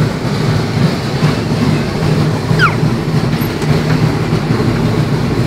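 Electric bumper car running across the rink floor: a steady rolling rumble of its motor and wheels, with a brief falling squeal about halfway through.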